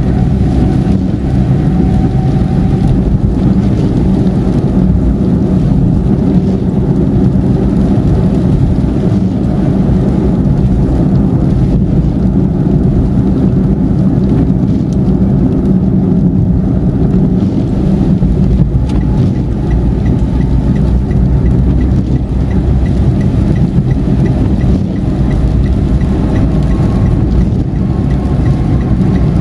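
A car driving at highway speed: a steady rumble of tyres on the road and the engine. A faint regular ticking comes in during the last third.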